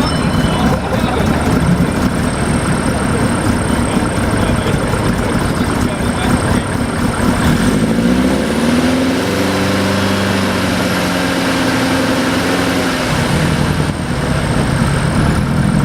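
Vintage racing car engine running roughly at low revs. About halfway in it is revved up, held at steady high revs for about four seconds, then let back down: an engine held at set revs for a noise test.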